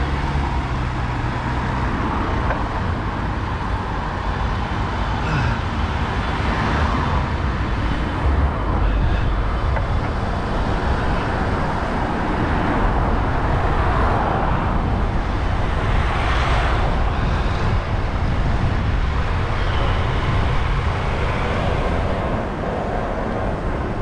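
Tractor engine running steadily while driving along a road: a continuous low rumble mixed with road and traffic noise.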